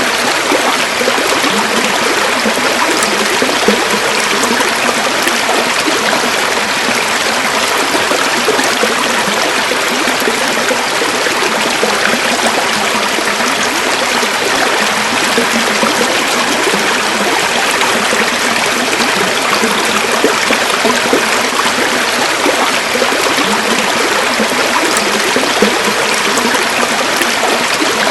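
A river flowing steadily, the water rushing and trickling over stones without a break.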